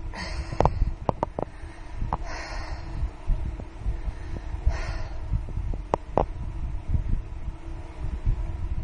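A woman breathing hard, three heavy breaths about two seconds apart, as she recovers after an hour and a half of cycling as hard as she could. A low rumble and scattered clicks run underneath.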